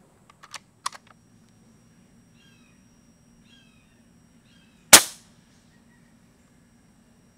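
Umarex Gauntlet .25 regulated PCP air rifle firing one loud, sharp shot about five seconds in, the report ringing off briefly through its factory shroud. It is preceded by a few quick mechanical clicks in the first second. Three short high chirps, about a second apart, come just before the shot.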